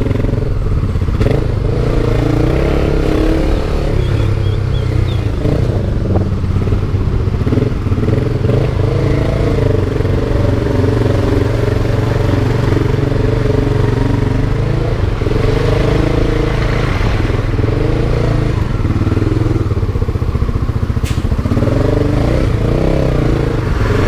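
Honda motorcycle engine running at low revs while filtering slowly through stopped traffic. Its note rises and falls gently with the throttle, over steady road noise.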